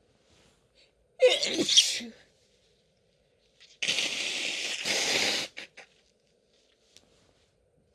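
A woman sneezes once, loudly and with a voiced start, about a second in. A couple of seconds later comes a long hissing rush of air, about two seconds long and in two parts.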